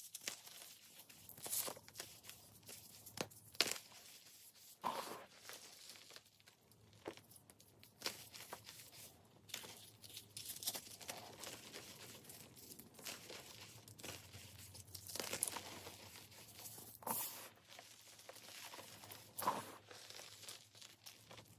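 Dyed pasted gym chalk blocks crushed and crumbled in bare hands: irregular dry crunching and crackling as the blocks break apart, with loose chalk powder rustling between the fingers.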